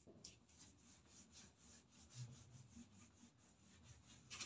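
Whiteboard being wiped clean, faint repeated rubbing strokes about three a second, with a slightly stronger stroke near the end.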